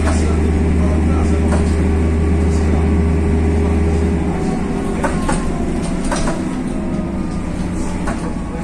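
Mercedes OM906 LA turbo-diesel inline-six of a BredaMenarinibus M240 city bus, heard from inside the passenger cabin: a steady engine drone whose deepest hum drops away about four seconds in. Occasional short clicks and rattles sound over it.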